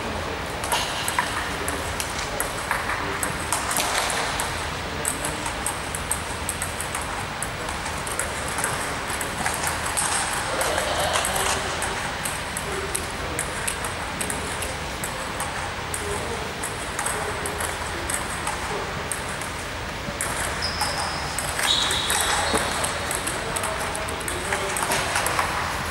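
Table tennis ball clicking back and forth off rackets and table in quick rallies, many sharp ticks at an uneven pace, over the murmur of a sports hall.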